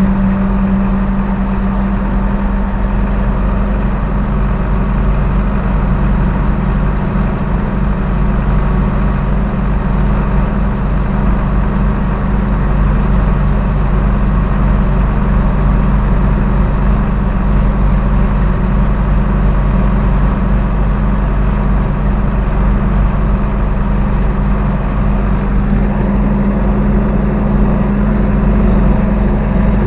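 Zetor 6745 tractor's four-cylinder diesel engine running steadily while working with a load of manure, its note rising slightly near the end.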